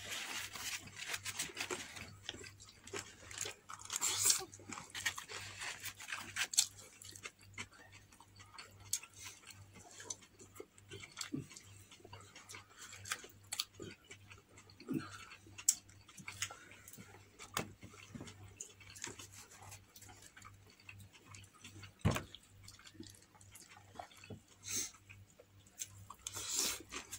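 Close-up eating sounds of someone eating fried chicken with their fingers: chewing, lip smacks and small scattered clicks, with a few louder crackly bursts about four and six seconds in.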